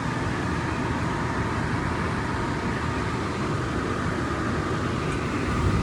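Newly replaced blower motor of a hydronic fan-coil cabinet unit heater running at full speed, its fan blowing a steady rush of air with a faint steady hum. The unit is back in operation after the motor replacement, putting out heat.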